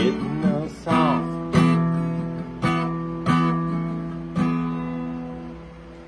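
Acoustic guitar strummed in about six chords roughly a second apart, the last one left ringing and fading away. A man's voice sings briefly over the first second.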